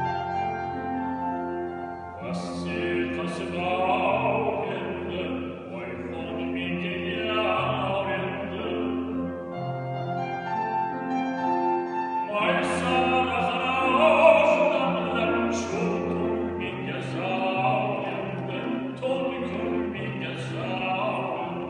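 A baritone singing an opera aria with piano accompaniment. The piano plays alone at first; the voice comes in about two seconds in, breaks off for a few seconds near the middle while the piano carries on, then comes back.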